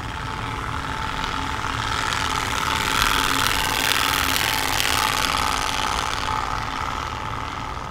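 TurboSpoke plastic Motocard being flicked by the spokes of a rolling unicycle wheel, a fast ratcheting rattle made louder by the plastic exhaust-pipe horn to imitate a motorbike engine. It grows louder toward the middle as the wheel passes and eases off later.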